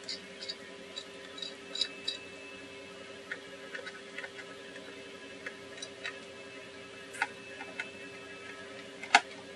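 Small screwdriver clicking and ticking on screws in a laptop's underside panel, light irregular clicks with one sharper click near the end, over a steady low hum.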